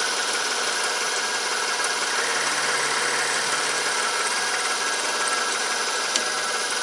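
Metal lathe running steadily with its carriage on power feed, taking a light milling pass.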